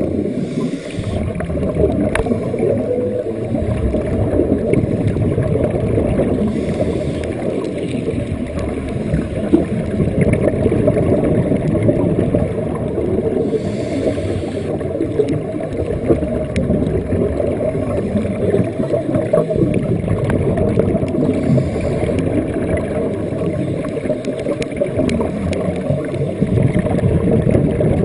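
Underwater sound of scuba divers' exhaled air bubbling from their regulators, heard as a steady muffled gurgling rumble through a waterproof camera housing. Fainter hissing surges return every several seconds.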